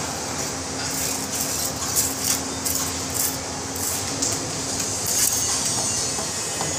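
Steady drone of factory machinery with a constant low hum, and a few faint clicks and scrapes over it.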